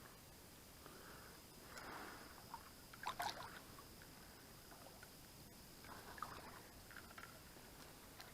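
Near silence: faint streamside ambience with a steady thin high tone, a few soft handling rustles and a brief crisp rattle about three seconds in.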